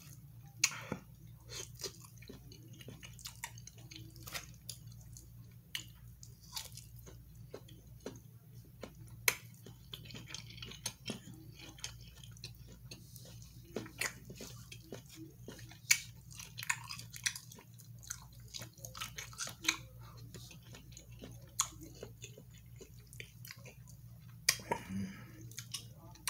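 A man chewing and eating close to the microphone: wet mouth sounds with many irregular sharp clicks and smacks, over a low steady hum.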